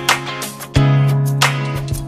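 Background music with a steady beat and sustained bass notes.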